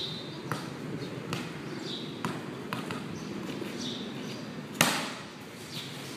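A volleyball bounced a few times on a concrete court, light thuds, then one sharp smack about five seconds in as it is served.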